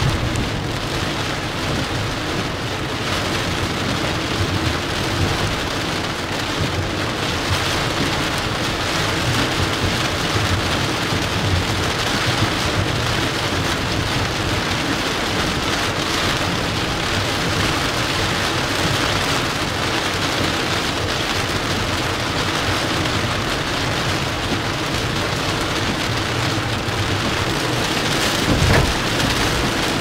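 Heavy typhoon rain pelting the car's windshield and roof, heard from inside the moving car, a dense steady hiss with wiper blades sweeping the wet glass. A brief thump comes near the end.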